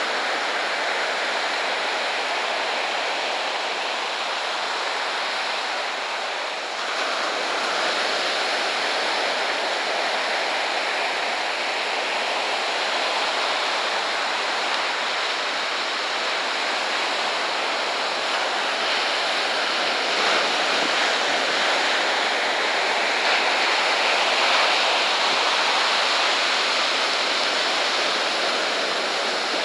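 Ocean surf breaking on the beach: a steady, continuous wash of waves, with a brief dip about six seconds in.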